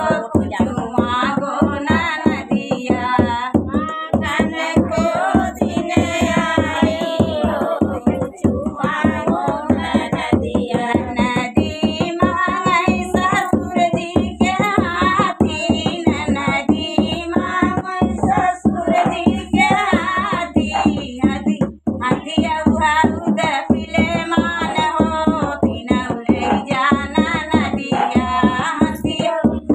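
A woman singing an Awadhi uthan folk song while beating a steady rhythm with both hands on a dholak, a two-headed barrel drum.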